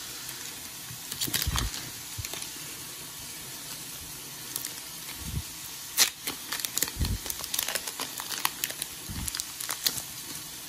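Foil Pokémon booster pack wrapper being crinkled and torn open by hand: a short run of crackles about a second in, then a denser run of crinkles and taps from about six seconds on, with a few dull handling bumps.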